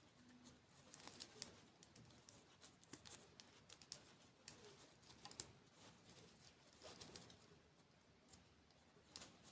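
Faint close-up eating sounds: irregular small clicks and crackles of someone chewing desserts near the microphone.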